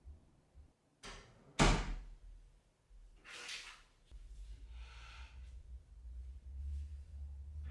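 A single sharp bang about a second and a half in, followed by two soft swishing sounds and a low steady hum.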